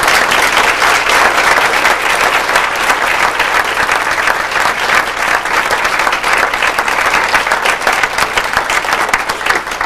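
Audience applauding: dense, steady clapping from many hands that thins out near the end.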